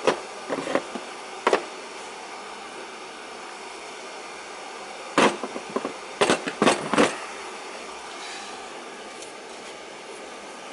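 A few sharp clicks and knocks of handling, over a steady mechanical hum: one at the start, one about a second and a half in, then a cluster of four or five between about five and seven seconds in.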